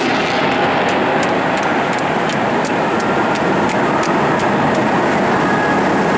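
Eurofighter Typhoon's twin EJ200 jet engines, a steady loud jet noise, with a run of light regular clicks about four a second through most of it.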